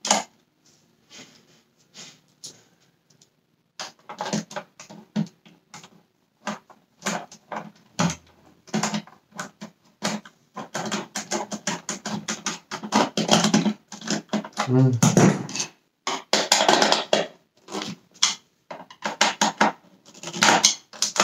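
Torx screwdriver driving screws into the plastic base of a Dyson Cinetic Big Ball vacuum cleaner: irregular clicks, scrapes and rattles of plastic, sparse at first and much denser from about ten seconds in, with a brief squeak now and then.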